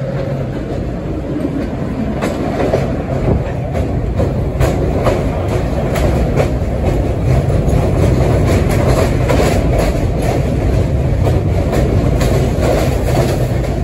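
Vintage New York City subway train rolling into the station and along the platform at close range: a steady rumble of wheels that grows louder over the first several seconds, with wheels clicking over the rail joints.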